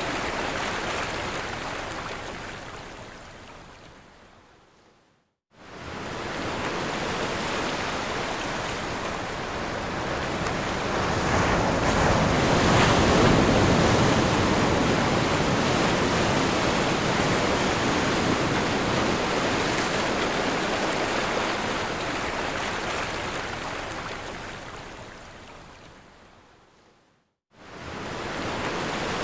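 Ocean waves breaking on a shore: a steady rush of surf that swells to its loudest about halfway through. It fades out to a moment of silence about five seconds in and again near the end, fading back in each time.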